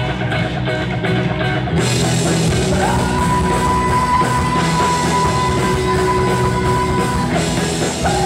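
Live rock band playing through a PA: an electric guitar picks a repeated figure, then drums with cymbals join about two seconds in, and a long high lead note is held for about four seconds over the band.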